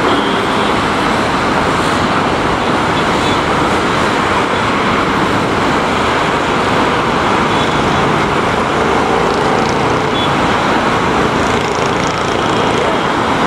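Steady jet engine noise of a Boeing 787 climbing away at takeoff power, a loud even rush with no breaks.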